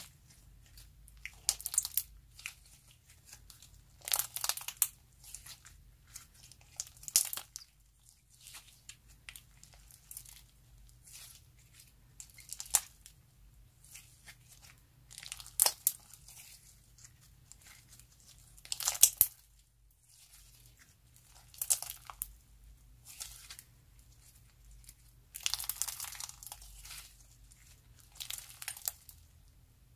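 Sequin-filled slime being stretched, folded and squeezed by hand, giving irregular crackly, crinkly bursts every second or two as it pulls apart and presses together, the loudest about two-thirds of the way in.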